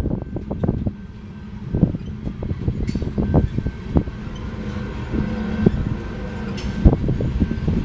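Covered hopper cars of a freight train rolling past at a grade crossing: a low rumble of wheels on rail with irregular clanks and knocks as wheels cross rail joints and the crossing.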